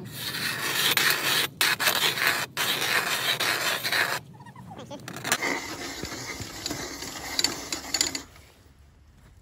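Hand-cranked ice auger's blades shaving and scraping into pond ice, a loud rasping for about four seconds with two brief pauses, then a quieter grinding that stops shortly before the end.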